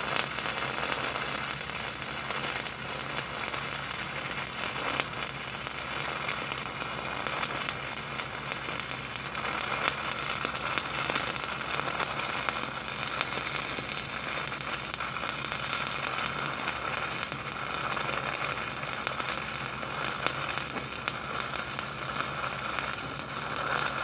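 Stick welding arc from an 8010 cellulose electrode running a cap pass on steel pipe: a steady, unbroken crackle and sizzle.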